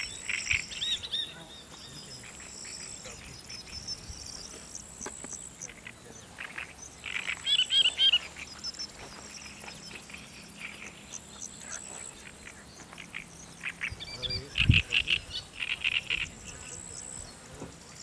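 Pond-side nature ambience: a steady high-pitched insect trill, with louder bursts of animal calls about seven seconds in and again around fifteen seconds.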